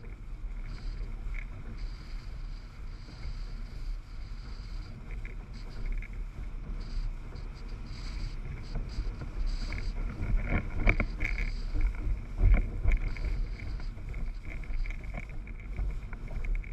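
Windsurfer sailing over chop: wind buffets the boom-mounted camera's microphone with a steady low rumble, and water rushes and slaps against the board, the slapping heaviest about ten to thirteen seconds in.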